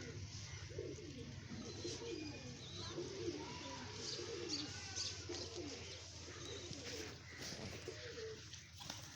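Several pigeons cooing, with low, rolling, overlapping coos that rise and fall in pitch throughout, and faint higher chirps here and there.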